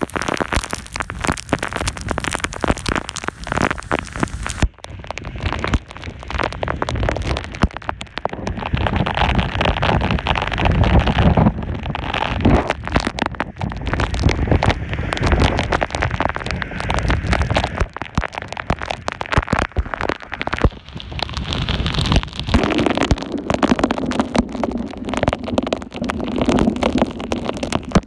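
Typhoon wind buffeting the microphone in heavy gusts, rising and falling, over heavy rain pelting down on a wet street.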